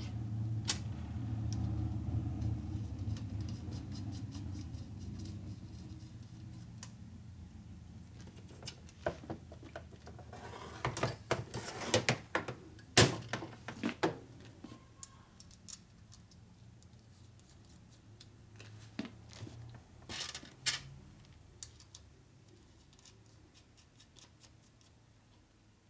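Metal clinks and knocks of parts being handled on a steel workbench while a Harley-Davidson Evolution engine's aluminium crankcase is assembled, with a cluster of sharp clicks about ten seconds in and a few more around twenty seconds. A low hum fades away over the first several seconds.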